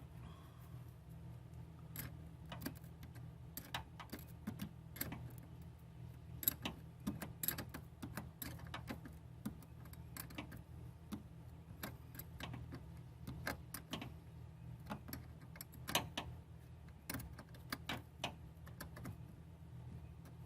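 Irregular small metallic clicks and clinks of hand tools and terminal hardware as a replacement battery cable terminal is fitted onto a battery post and tightened. A steady low hum runs underneath.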